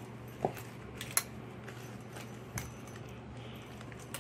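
Metal lamp parts clinking as they are handled, with a few small sharp clicks about half a second, a second and two and a half seconds in, over a low steady hum.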